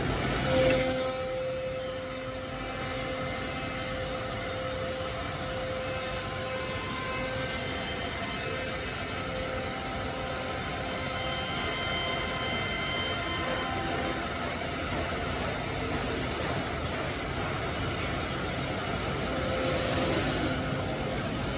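Woodmaster three-head CNC mortising machine running, its spindles giving a steady whine as they cut mortises into curved wooden chair parts. A few short hisses of compressed air come about a second in and twice in the later part.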